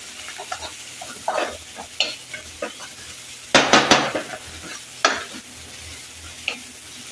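Metal spatula scraping and stirring sliced onions, green chillies and ginger-garlic paste frying in a kadhai, over a low sizzle. The strokes come irregularly, with the loudest run of scrapes about halfway through and another sharp scrape about five seconds in.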